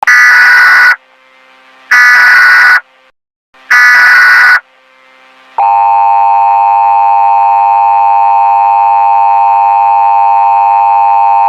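Emergency Alert System tones: three loud data-header bursts of about a second each, separated by short gaps, then from about five and a half seconds in the steady two-tone attention signal that announces an alert.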